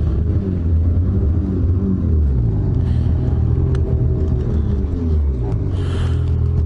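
Ski-Doo snowmobile engine running at low speed as the sled creeps forward, its pitch rising and falling slightly with small throttle changes.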